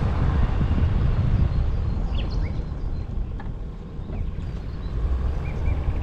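Low rumble of wind and road noise from a car driving, heard on a car-mounted action camera, easing a little about four seconds in. A few short high chirps sound over it.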